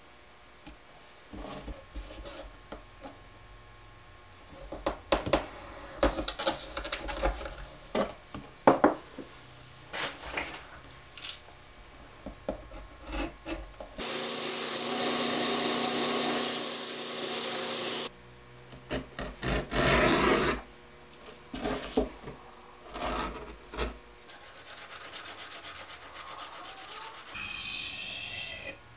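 Irregular scraping strokes of a hand tool shaping a knife's wooden handle scales. About halfway through, a belt grinder runs steadily for about four seconds as the handle is ground against it, then there are more scraping strokes. Near the end, the blade is stroked on a sharpening stone.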